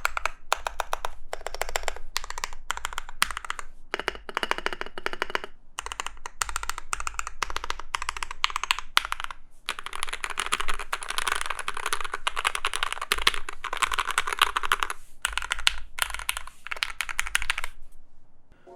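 Typing sound test on an Ikki68 Aurora Mizu custom mechanical keyboard with Gateron Hippo switches, an aluminium plate, full dampening and Milkyway PBT keycaps: a steady run of keystrokes, pretty muted and deep. It speeds to a fast flurry in the middle and stops just before the end.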